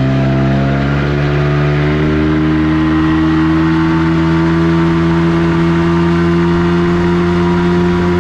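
Small boat's engine running under way, its pitch climbing a little over the first couple of seconds as it picks up speed, then holding steady.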